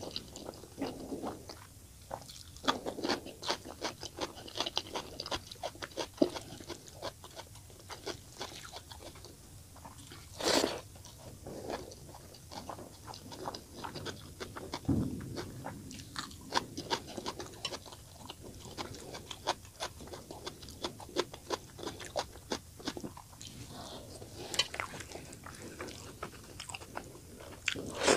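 Close-up eating sounds: wet chewing and mouth clicks of a mouthful of fish curry and steamed rice, mixed with the soft squish of rice being kneaded by hand on a steel plate. The sound is a dense run of small irregular clicks and crackles, with one louder noise about ten seconds in.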